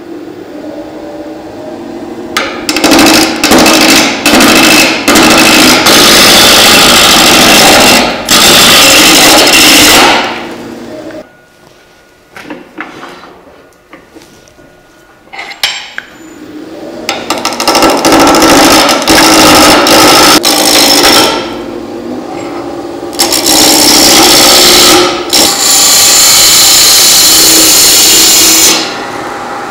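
Roughing gouge cutting a square-edged wood blank spinning on a wood lathe, turning it round, in loud passes over the lathe motor's hum. The cutting stops about ten seconds in and the lathe falls quiet for a few seconds, then the passes resume about seventeen seconds in and stop shortly before the end.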